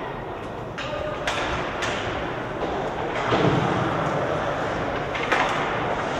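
Ice hockey play: skate blades scraping on the ice and sticks clacking on the puck in several sharp knocks after a faceoff, with a louder thud about three and a half seconds in.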